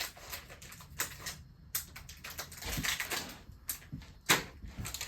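A part's cardboard box and packaging being opened and handled by hand: scattered rustles, scrapes and clicks, with a sharper knock a little over four seconds in.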